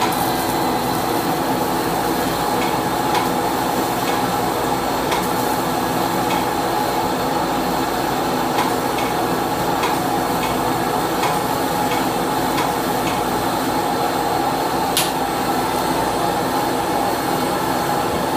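Surgical suction vacuum running with a steady hum, drawing off the plume while the nail matrix is lasered; faint ticks come now and then, with one sharper click about three-quarters through.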